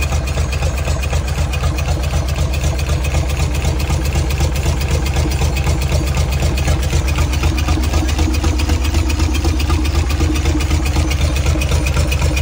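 Engine idling steadily with an even, fast beat.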